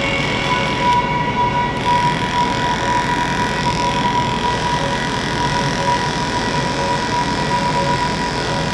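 Electric hair clipper with a detachable size 1.5 blade running steadily, a constant even hum while cutting hair.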